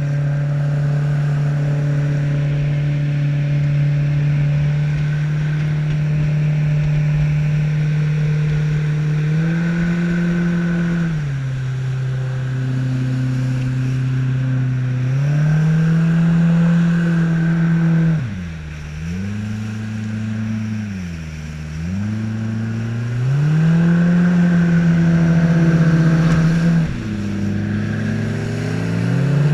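Boat motor on a jon boat running under way, a steady engine hum that rises and falls in pitch as the throttle changes. It dips low twice in quick succession a little past the middle, then comes back up.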